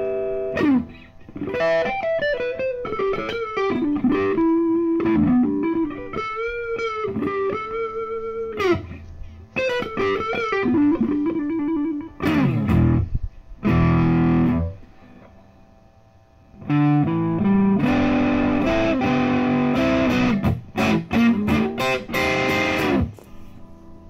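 Electric guitar played through a Boss Katana Artist combo amp on its crunch channel, with the gain, as the player thinks, turned all the way up. A single-note lead line with string bends and vibrato gives way to strummed distorted chords, with a short pause about two-thirds through.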